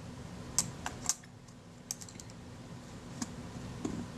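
Light, irregular clicks and taps of small metal camera parts and tools being handled as the shutter speed setting ring is fitted onto the Kodak Retina IIa's shutter, over a faint steady hum.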